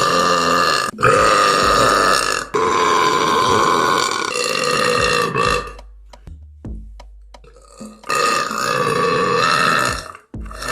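A person belching loudly several times in a row: long, drawn-out burps held at a steady pitch. Three come back to back, the third longer and fading out, then another after a pause of about two seconds.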